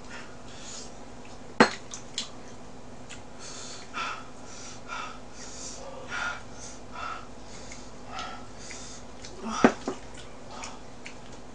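Eating sounds: soft, repeated chewing and mouth noises while eating braised monkfish, with two sharp clicks of metal chopsticks against a dish, about a second and a half in and again about two seconds before the end.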